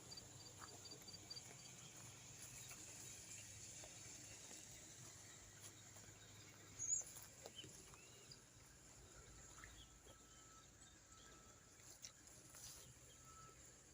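Near silence: quiet outdoor ambience with faint bird chirps, one brief chirp about halfway through standing out.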